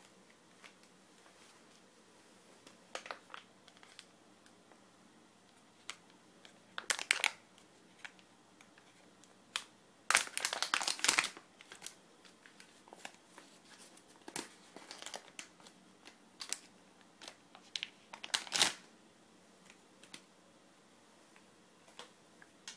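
Packaging being handled, crinkling and rustling in short, irregular bursts, the loudest and longest run about ten seconds in.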